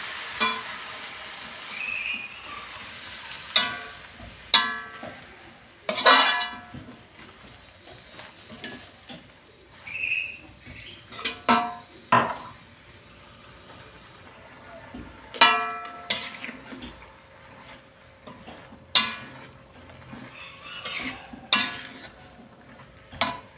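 Metal spatula scraping and clanking against an aluminium wok while Chinese cabbage and tofu are stirred, with scattered sharp strikes that ring briefly. A sizzling hiss at the start, just after water is poured into the hot pan, dies away over the first few seconds.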